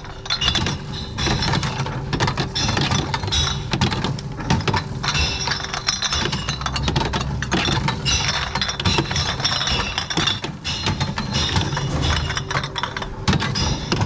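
Container-deposit reverse vending machine running, its motor humming steadily as the rotating feed drum with green rollers takes in containers, with repeated rattles and clinks of glass bottles going through.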